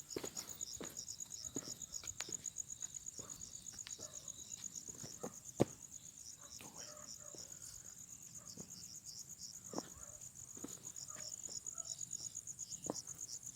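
Night insects, crickets, chirping in a steady high-pitched trill made of rapid even pulses, with a second, slower pulsing chirp just below it. Scattered soft knocks, like footsteps, come through now and then.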